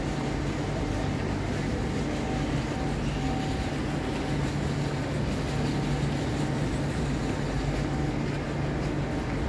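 Steady low mechanical hum under a constant hiss: the ambience of a large railway station hall.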